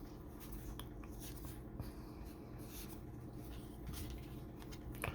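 Faint rustling and light scraping as trading cards and a foil pack wrapper are handled, with a few small ticks and a slightly sharper click near the end.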